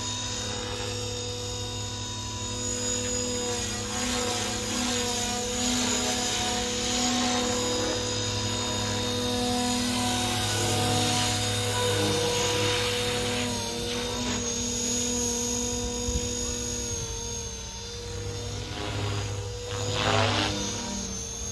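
Radio-controlled model helicopter flying overhead: a steady whine from its motor and rotor blades, swelling louder near the end.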